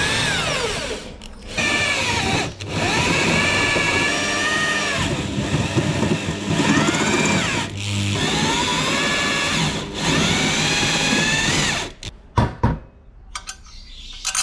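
Ozito electric drill running a step drill bit through a metal mounting plate: the motor whine rises and dips in pitch as the bit bites, in several runs with short breaks, stopping about twelve seconds in. A few metal clinks follow near the end as the drilled plate is handled.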